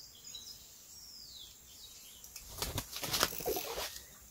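Two short falling bird whistles in the first second and a half, then about a second of rough, rustling noise bursts in the second half, the loudest sound here.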